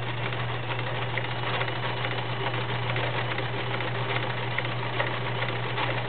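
Kenmore model 1931 convertible free-arm sewing machine running steadily, sewing a stretch zigzag stitch: an even motor hum under a fast, constant clatter of needle strokes.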